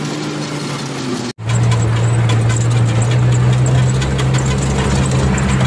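Truck engine running, heard from inside the cab while the truck is under way. It breaks off for an instant about a second and a half in, and after that the steady low engine drone is louder.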